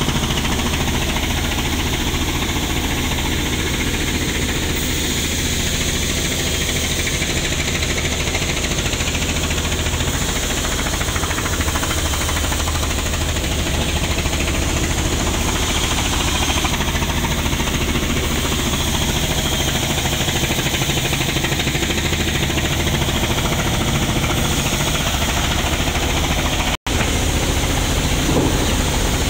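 An engine running steadily with a low hum, cutting out for an instant near the end.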